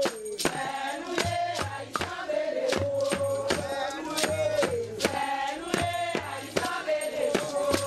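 Group chanting of a Vodou ceremonial song, a lead voice holding long, slowly bending notes, over steady hand percussion with sharp strikes about two a second.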